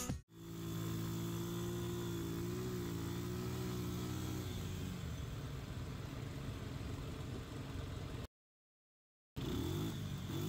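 Quad bike (ATV) engine running with a steady, slightly wavering note, then revved in repeated short rising bursts near the end. The sound cuts out for about a second just before the revving.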